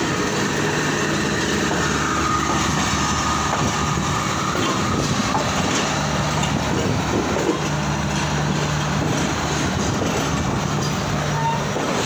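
Passenger train rolling along the track, heard from its open doorway: a steady rumble of wheels on rails, with a faint high squeal for a couple of seconds near the start.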